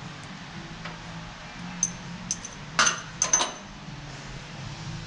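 Light metal clinks of hydraulic quick couplers being handled, a few spread out and then a quick cluster about three seconds in, over a steady low hum.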